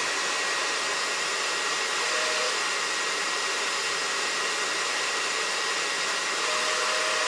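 Electric fan of a Smart car intercooler blowing air steadily through the core, a constant rush of air with a thin high whine.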